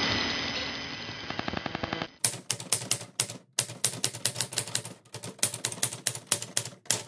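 Typewriter-style keystroke sound effect: rapid sharp clicks, several a second, in runs with short pauses, as text types out letter by letter. Before the clicks, a noisy static hiss with a faint hum fades away over the first two seconds.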